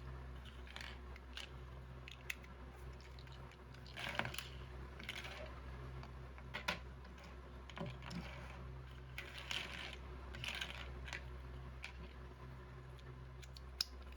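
Plastic toy building bricks clicking and clattering at irregular moments as they are handled, over a low steady hum.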